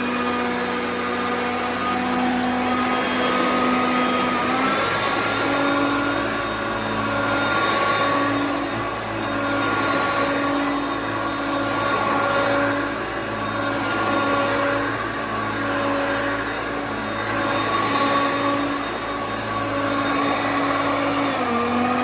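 Hoover Concept upright vacuum cleaner running over carpet. Its motor hum steps up in pitch about four seconds in, then wavers up and down in a steady rhythm about once a second, and drops back near the end.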